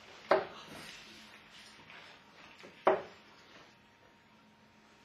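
Steel-tip darts hitting a Winmau bristle dartboard: two sharp hits, about two and a half seconds apart.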